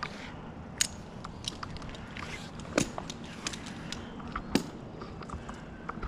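Irregular clicks, knocks and light scrapes of a tree climber working aloft: metal climbing hardware and rope being handled, and gloves and gear against the bark. The three sharpest knocks fall about a second, three seconds and four and a half seconds in, over a faint low steady hum.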